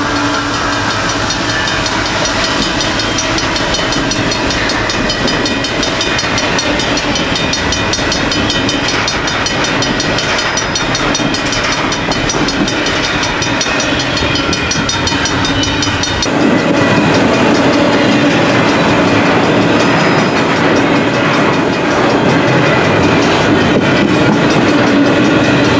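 Double-stack intermodal container cars of a long freight train rolling past, their steel wheels clicking over the rails with a steady rumble and rattle. About two-thirds of the way through, the sound gets louder.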